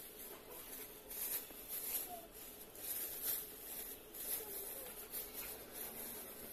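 A thin plastic Macintosh bed-protector sheet crinkling and rustling as it is unfolded and spread over a bed, in a run of short crisp crackles.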